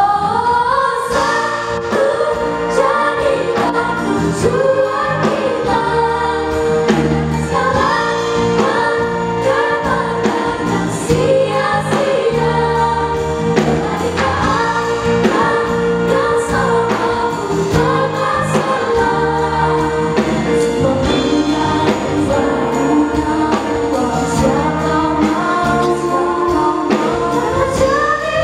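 Children's choir singing in Indonesian, with girl soloists on microphones, over instrumental accompaniment amplified through the hall's sound system.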